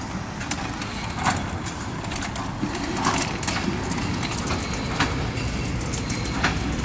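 Electric quad bike driving over bumpy grass: a steady low rumble with sharp rattles and knocks from its body and suspension every second or two.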